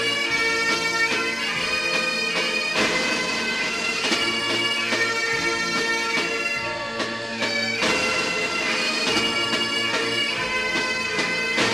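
Bagpipe music: a melody played over steady held drones.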